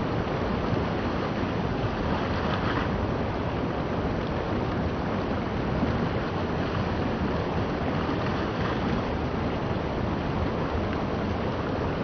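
Steady rushing and burbling of a shallow river flowing fast over a rocky riffle.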